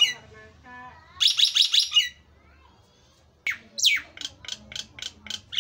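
Nias hill myna calling loudly: a fast rattling burst of rapid notes, a pause, then a sharp falling whistle and a run of short, sharp notes at about four a second.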